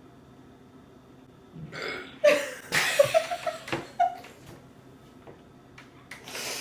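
A woman burping several times in quick succession, a cluster of short throaty belches about two seconds in and one more near the end, from gas after gulping carbonated Sprite.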